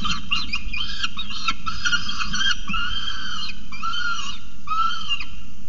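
Peregrine falcon calling: a quick run of short, harsh chattering calls, then four longer wailing calls of about half a second each.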